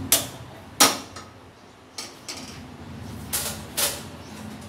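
Sharp clicks and knocks of a nonstick frying pan and kitchenware being handled on a stainless steel gas stove, about seven in all, the two loudest in the first second.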